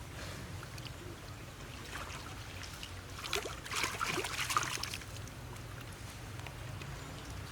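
Water splashing and trickling, with a louder stretch of splashing about three to five seconds in, over a steady low hum.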